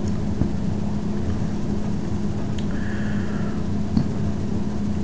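A steady low hum, with faint clicks about half a second and four seconds in.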